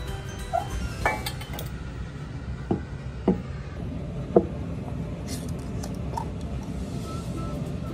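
A glass mason jar and a stainless steel bowl clinking and knocking as they are handled and set down on the floor: about five sharp knocks over the first four and a half seconds, the last the loudest, then only faint clicks.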